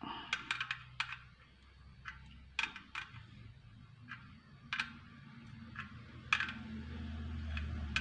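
Light metallic clicks and clinks at uneven intervals as a mini folding multitool's pliers grip and turn the nut on a portable gas stove's pot-support arm, with a low steady hum underneath.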